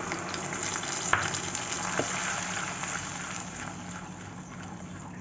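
Wet onion and ginger-garlic paste sizzling as it hits hot oil in a kadhai and is stirred with a wooden spatula, with a couple of light knocks against the pan. The sizzle is strongest at first and eases off as the paste cools the oil.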